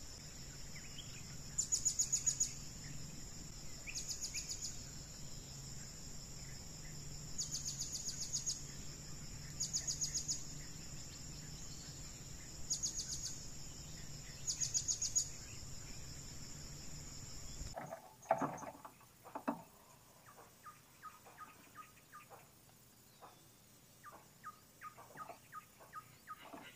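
Insects keep up a steady high-pitched buzz, with louder pulsed trills every two to three seconds. About two-thirds of the way through the sound changes abruptly to a quieter mix of sharp clicks and short faint chirps.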